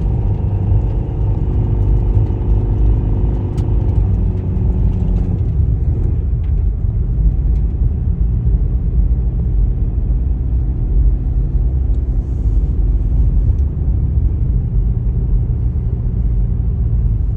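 A heavy, buffeting low rumble of strong wind on the microphone. For the first five seconds a motor vehicle's engine drone runs under it, its pitch sinking slightly before it fades out.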